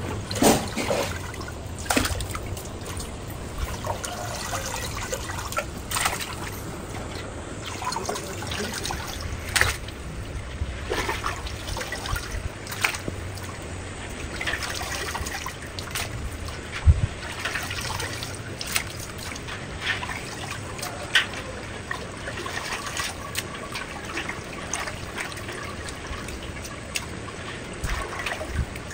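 Water trickling and splashing steadily, broken by many short knocks and clinks.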